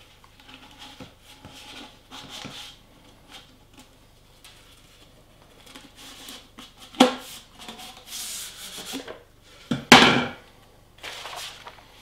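Cardboard mailing tube being handled and a rolled paper sheet slid out of it: scraping and paper rustling, a brighter rustle about eight seconds in, and two sharp knocks, the louder one about ten seconds in.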